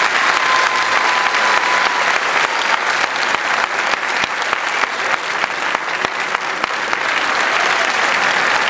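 Theatre audience applauding steadily, a dense patter of many hands clapping. A thin, high, steady tone is held for about the first two seconds.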